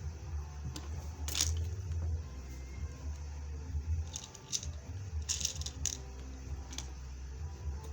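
A hand-operated bead rivet machine setting beads onto a chiffon scarf: several short clicks and crunches at irregular intervals, some in quick clusters, over a low steady hum.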